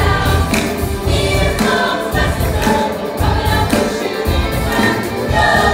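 A live stage-musical number: ensemble voices singing together over a band with a heavy, pulsing bass.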